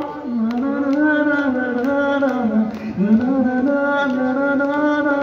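A man singing a long, drawn-out note through a handheld microphone, the pitch wavering and dipping about three seconds in before rising again.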